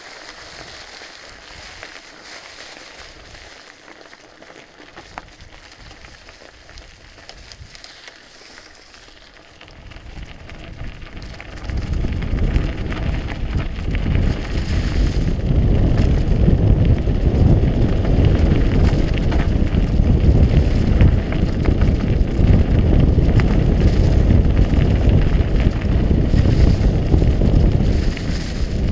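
Mountain bike tyres rolling and crackling over dry fallen leaves and gravel on a downhill trail. About ten seconds in, a much louder low rumble of wind buffeting the action-camera microphone sets in and stays as the bike picks up speed.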